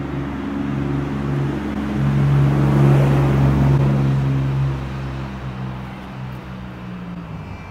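A passing engine: a steady low hum that swells to its loudest about three seconds in and then fades away.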